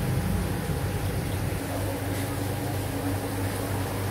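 Steady low hum with an even hiss: aquarium air pumps running and sponge filters bubbling.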